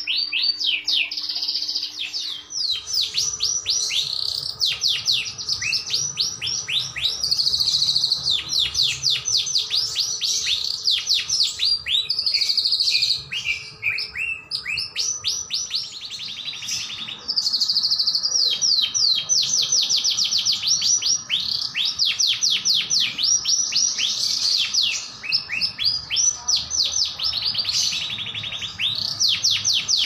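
Canary singing: long runs of rapid trilled and repeated chirping notes, broken by a few short pauses.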